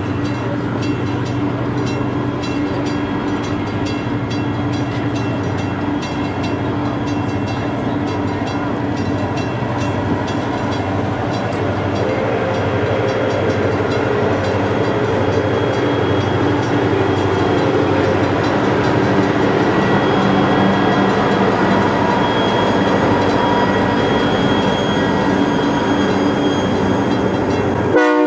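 Passenger excursion train rolling past: a steady rumble and wheel-on-rail noise with some held tones, growing louder over the second half. It cuts off abruptly at the very end.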